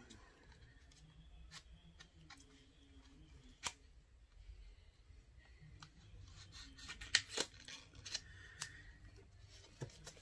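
Faint handling of cosmetics packaging: light rustling with a few sharp clicks, the loudest about three and a half seconds in and twice in quick succession around seven seconds in.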